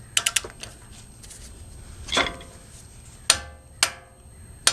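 Wrench clicking on bolts being torqued to 59 foot-pounds: a few quick ratchet clicks at the start, then separate sharp metallic clicks and clinks, one of which rings briefly.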